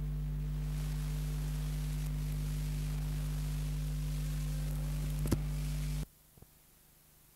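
Steady electrical hum with hiss on the silent film transfer's soundtrack, with a single sharp click about five seconds in. The hum cuts off abruptly about six seconds in, leaving only faint hiss as the film runs out.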